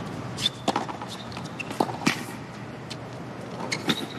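Tennis rally on a hard court: sharp pocks of racquet strings hitting the ball and the ball bouncing, coming in pairs about every second and a half, over a low steady stadium hum.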